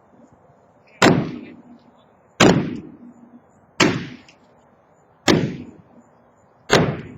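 Five heavy sledgehammer blows at a steady pace, about one every second and a half, each a sharp crack with a short ring after it.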